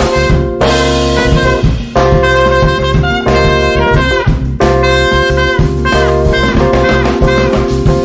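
Live jazz trio: trumpet playing held melodic phrases over electric bass guitar and drum kit. There are brief breaks between phrases about two seconds and about four and a half seconds in.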